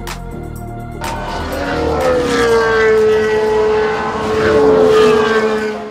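Race car engine at high revs sweeping past, its pitch dropping a little, loud twice in the middle, then cutting off sharply at the end.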